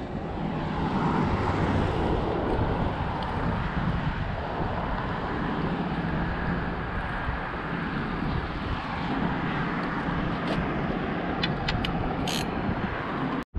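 Steady rumble of road traffic crossing the bridge, with wind buffeting the microphone, and a few faint ticks near the end.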